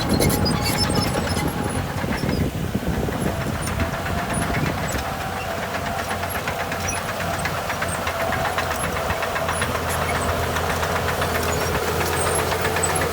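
Heavy diesel engine of earthmoving machinery running steadily, with a fast, even knock. A faint whine joins a few seconds in.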